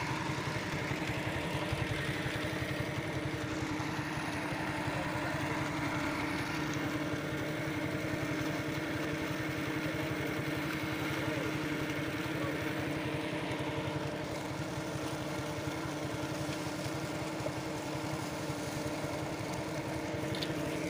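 Small engine idling steadily, an even hum with a fast low pulse that holds without change.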